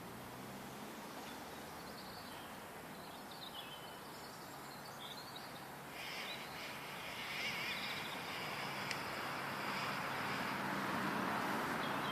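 Wild birds chirping in the background over steady outdoor noise. From about halfway a louder rushing hiss builds up and covers them, with one sharp tick in it.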